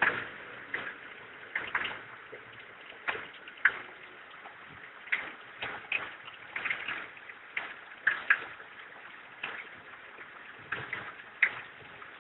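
Irregular sharp clicks and light knocks, about one or two a second, over a steady low hiss.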